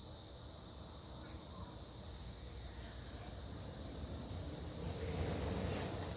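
1998 Hunter Original ceiling fan running on low speed from a variable-speed control, its moving air rumbling low on the microphone and swelling about five seconds in. A steady high chirring of crickets runs underneath.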